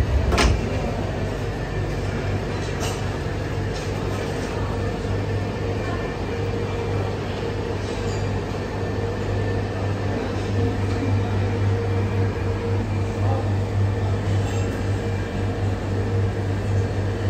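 A vehicle running with a steady low hum, with a single sharp click about half a second in.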